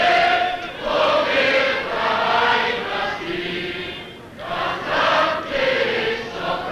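A choir singing held notes in phrases, with a brief pause between phrases about four seconds in.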